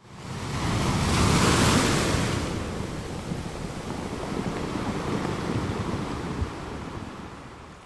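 Sea surf: a wave rushes in and breaks, loudest about a second and a half in, then washes out and fades away slowly.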